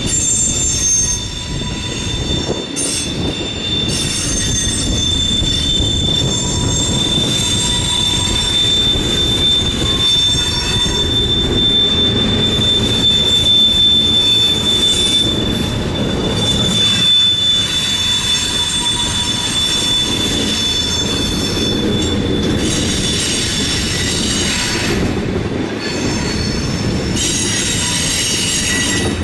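Freight cars (tank cars and covered hoppers) rolling slowly past, the wheels rumbling on the rails while the flanges squeal: a steady high-pitched squeal for most of the time that drops out about three quarters of the way through, then shorter spells of squealing near the end.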